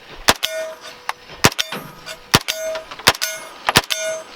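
Unsuppressed 9mm Heckler & Koch MP5 fired in slow single shots, about six sharp reports roughly a second apart. Most shots are followed a moment later by the short ring of a steel target being hit.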